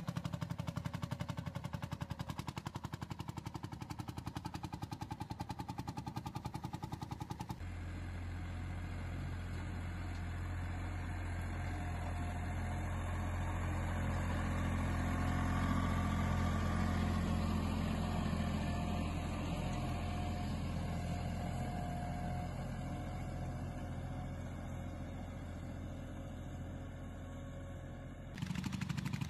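Tractor engines working under load while plowing. First an old tractor's engine runs with a fast, even pulse. About seven seconds in it cuts to a compact tractor's diesel running steadily, which grows louder and then fades.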